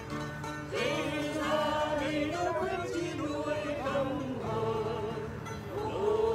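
Music: a song sung by several voices together, with wavering held notes.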